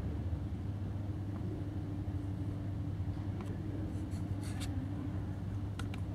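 Steady low rumble, with a few brief scratchy clicks about halfway through and again near the end.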